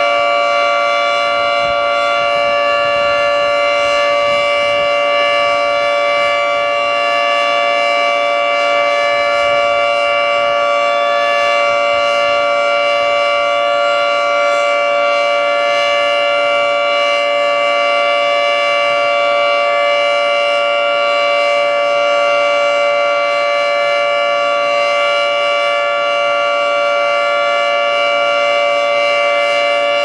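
Federal Signal 3T22A three-tone outdoor warning siren sounding its full alert signal: a loud chord of several tones held steady, with no rise or fall in pitch.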